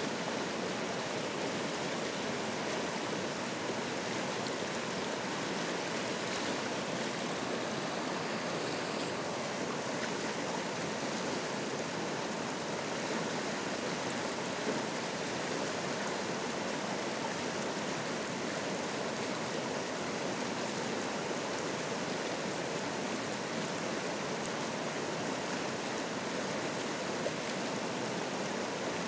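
Mountain river in spring flow rushing over boulders in whitewater rapids: a steady, even rush of water.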